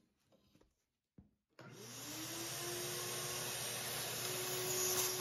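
Shop vacuum switched on about a second and a half in, its motor whine rising and settling into a steady run as it sucks rust sediment out of an old mower's fuel tank through a hose in the filler neck. A short hiss of compressed air from a blow gun comes near the end.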